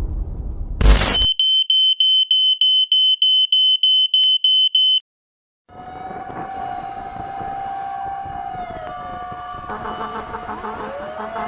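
A short loud burst, then a high electronic alarm beeping at nearly four beeps a second for about four seconds before it cuts off. After a brief silence, a fire truck siren wails over street noise: a steady tone that sinks and then climbs back near the end.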